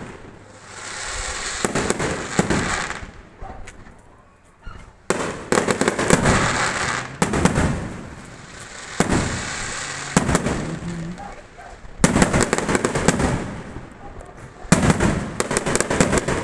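Fireworks going off: sharp bangs, each followed by a crackling tail lasting a second or two, in clusters every two to three seconds, with dense volleys of cracks in the middle and near the end.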